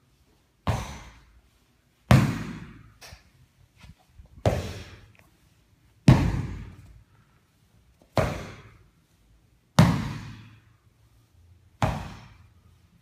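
MostFit Core Hammer, a sledgehammer-style fitness trainer, slammed down onto foam floor mats again and again: seven heavy thuds about every one and a half to two seconds, each ringing out briefly in the room.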